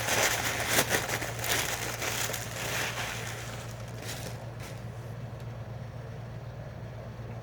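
Packaging being handled and crinkled while a small box is opened, in quick crackly rustles that stop about four and a half seconds in. A steady low hum runs underneath.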